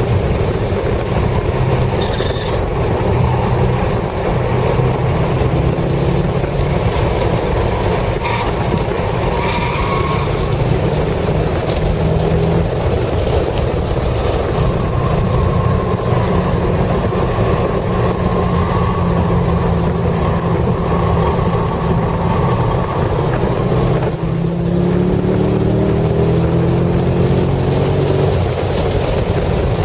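C6 Corvette Z06's 7.0-litre LS7 V8 at speed on a racetrack, heard from inside the cabin with wind and tyre noise. About 24 seconds in the engine note dips briefly, then climbs steadily in pitch as it revs up.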